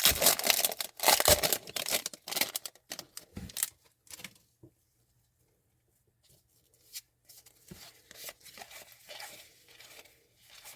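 Hockey card pack wrappers being torn open and crinkled, loudest in the first two seconds. After a short quiet gap comes softer rustling of wrappers and cards.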